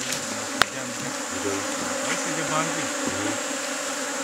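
A swarm of bees buzzing close by, the hum of many wings wavering up and down in pitch as they fly about. A single sharp click comes about half a second in.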